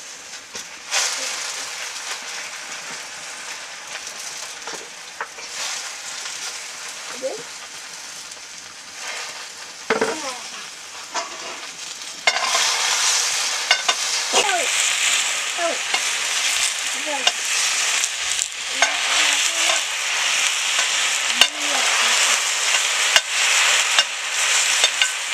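Greens frying in hot oil in a pan as they are stirred, with a steady sizzle and small crackles. About halfway through, the sizzle turns suddenly louder and stays loud.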